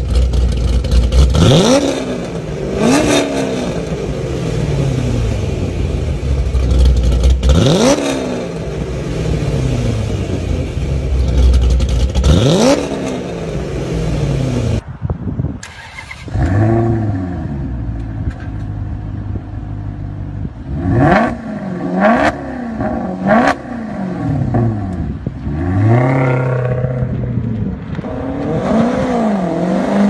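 A Chevrolet Camaro ZL1's supercharged V8 revved hard three times from idle, each rev climbing fast and falling away slowly. After a cut, a Maserati Quattroporte GTS's V8 is blipped several times in quick succession, the revs rising and dropping sharply.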